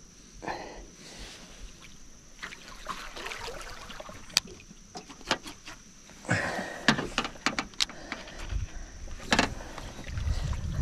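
Knocks and rattles of a landing net and fishing rod being handled against the boat, busiest from about six seconds in, with water splashing near the end as a hooked barramundi is brought to the net.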